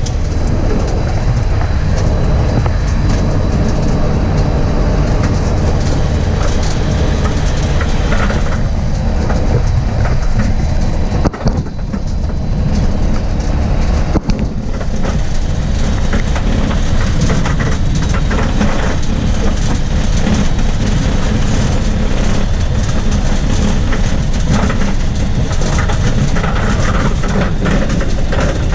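Aeroprakt A-22 ultralight's engine and propeller running steadily, heard loud from inside the cockpit, with two brief drops in loudness about eleven and fourteen seconds in.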